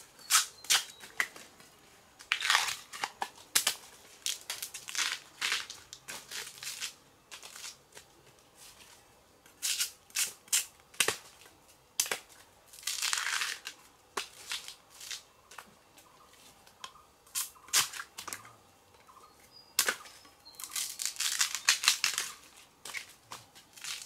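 Irregular bursts of crunching and tearing, each about a second long, with sharp single snaps in between, like dry plant material being broken or handled.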